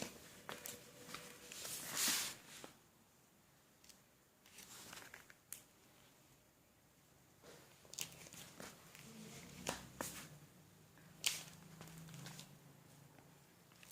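Scattered rustling and light clicks, with a louder rustle about two seconds in and a sharp click about eleven seconds in.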